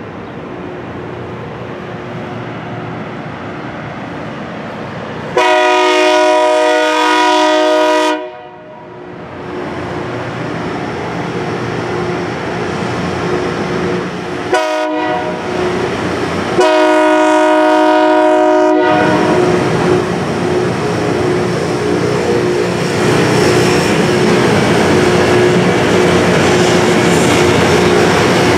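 Rail grinder work train's locomotive horn sounding at a grade crossing: a long blast of several tones together, a short toot, then another long blast. The passing train's engines and wheels run on and grow louder near the end.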